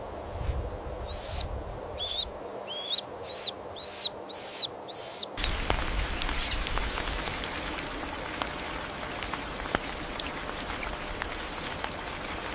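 A bird calling: a run of about seven short, high, arched chirps, coming closer together toward the end. They stop suddenly, leaving a steady hiss with scattered faint ticks.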